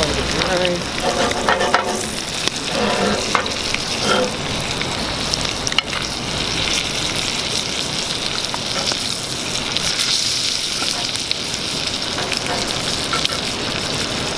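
Bluegill fillets sizzling in butter in a small cast-iron skillet over a wood fire: a steady frying hiss, with the odd scrape and click as a fillet knife moves the fish in the pan.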